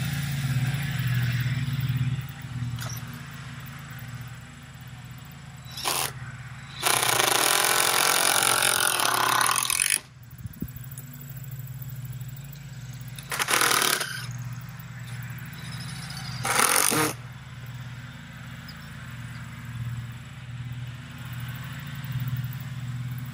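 Power drill driving screws into the wooden gate frame: a long run of about three seconds, then two shorter bursts, over a steady low hum.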